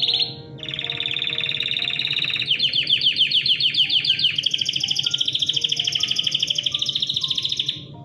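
Yellow canary singing a long song of rapid rolling trills. The trill changes pattern several times: a fast buzzy roll, a slower run of separate pulses from about two and a half seconds in, then a higher rapid trill that stops just before the end. Soft background music with plucked notes plays underneath.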